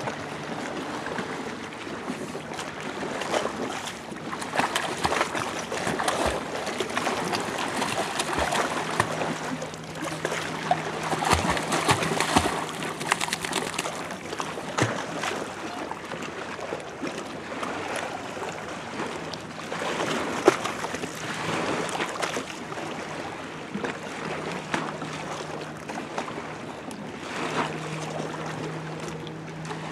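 Irish Setter wading and lunging through shallow lake water, splashing, in several louder bouts of splashing.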